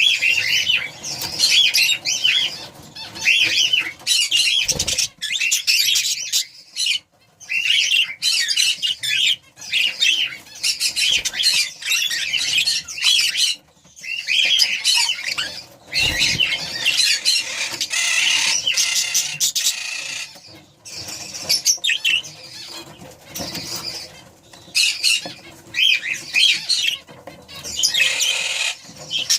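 Budgerigars chattering: a dense run of quick, wavering chirps and warbles, broken by short pauses.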